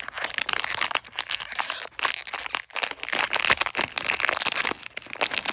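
Crinkly wrapping around a blind-box figure and its stand being crumpled and pulled open by hand, a dense run of irregular crackles.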